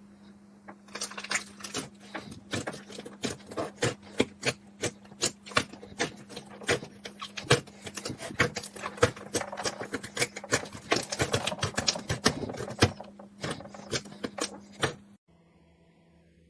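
Crisp, rapid crunching clicks of a knife cutting through dry soap, a few strokes a second over a faint steady hum, stopping suddenly near the end.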